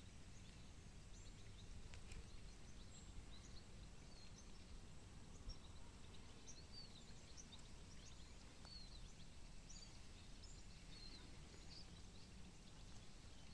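Quiet outdoor ambience: faint, scattered short chirps and calls of small birds over a low steady rumble.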